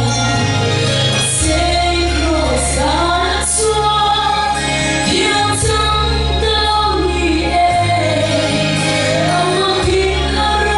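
A woman singing a Mizo gospel song into a handheld microphone over an amplified instrumental backing, her voice gliding between held notes while sustained bass notes change every second or two.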